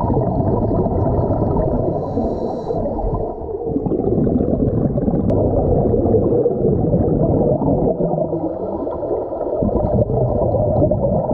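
Scuba diver breathing through a regulator underwater, exhaled bubbles gurgling and rushing, heard muffled and low with little above the midrange.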